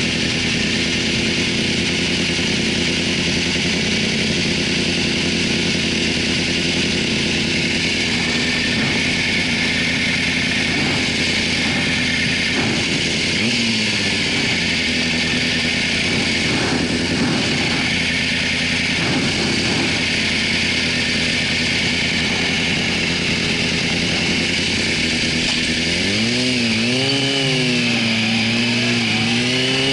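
2004 Yamaha YZF-R6's inline-four engine idling steadily, then rising and falling in pitch several times near the end as the throttle is opened and the bike pulls away.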